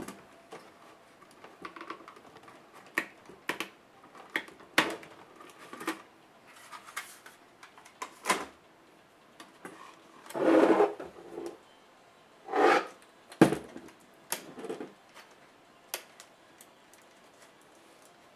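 Hands working on a stripped-down laptop's plastic and metal chassis: scattered clicks and taps as the optical drive is pulled from its bay and parts are handled, with two longer scraping sounds a little past halfway and a sharp knock just after them.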